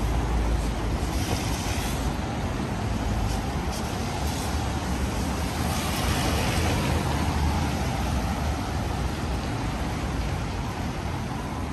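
Road traffic on a wet city street: vehicles passing over a steady low rumble, their tyres hissing on the wet road, the hiss swelling twice, about a second in and again around six seconds in.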